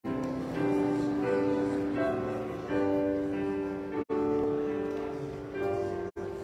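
Slow instrumental church music: a keyboard playing held chords that change about once a second. The sound drops out for an instant twice, about four and six seconds in.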